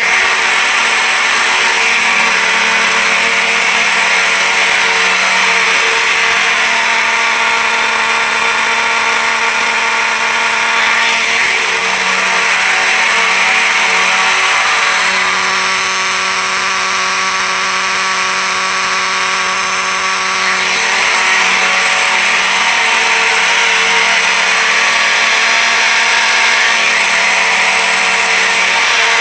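Electromechanical fire alarm horns, among them a Faraday horn strobe, sounding together on continuous: a loud, steady, raspy buzz that starts abruptly. The raspiness is the sign of horns out of adjustment, which the owner puts down in part to a bad component in the Faraday horn strobe.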